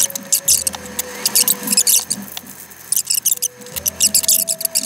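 Plastic coffee straws squeaking and clicking as they are pushed and twisted into small 3D-printed plastic connectors, in several short scratchy bursts.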